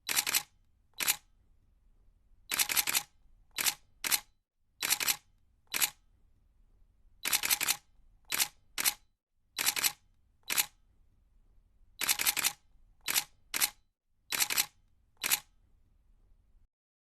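Camera shutter clicks, about seventeen in all, some single and some in quick runs of two or three, with silent gaps between.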